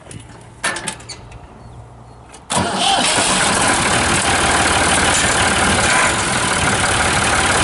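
1999 New Holland 3430 tractor's diesel engine started after a few clicks. It catches suddenly about two and a half seconds in and then runs steadily.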